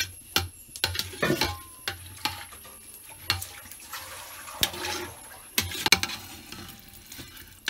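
Metal ladle stirring basmati rice in plenty of water in an aluminium pot, with irregular sharp knocks and scrapes of the utensil against the pot and water sloshing. The loudest knock comes about six seconds in.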